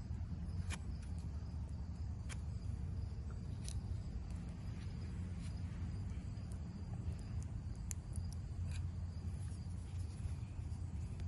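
Wooden popsicle stick spreading JB Weld muffler sealant paste on a thin sheet-metal patch: scattered light clicks and scrapes of stick on metal, over a steady low background hum.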